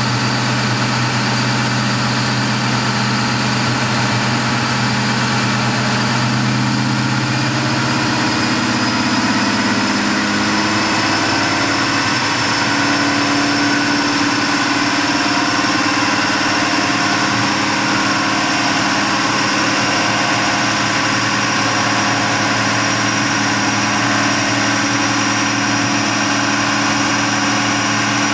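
Twin-turbo 2003 Mustang Cobra's 4.6-litre V8 idling steadily on a chassis dyno, with no revving. The idle note shifts slightly about nine seconds in.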